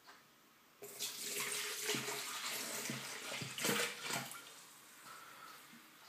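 Vinegar pouring from a narrow-necked ceramic bottle into an electric kettle, a steady splashing pour that starts about a second in and trails off near the end.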